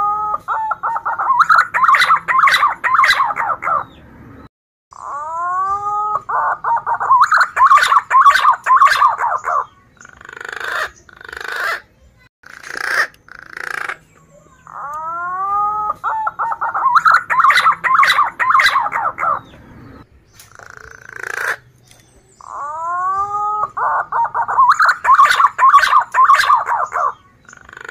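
Male punai daun green pigeon singing its full phrase about four times. Each phrase opens with a few whistled notes that rise and fall, runs into a fast warbling stretch of about three seconds, and ends with a few separate notes.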